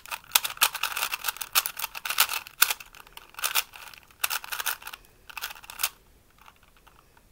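Rubik's Metalic 3x3 puzzle cube being turned fast by hand in a scramble: a rapid run of plastic clicks and clacks that dies away about six seconds in.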